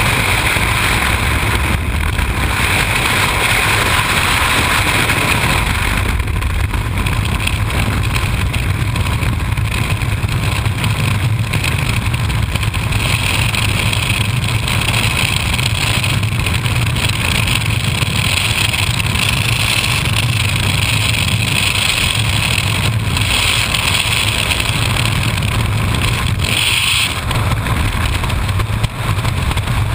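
Loud, steady rush of freefall wind buffeting a skydiver's helmet-mounted camera microphone.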